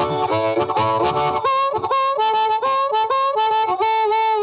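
Blues harmonica music, a quick line of notes with bends sliding between pitches, over low backing in the first second and a half.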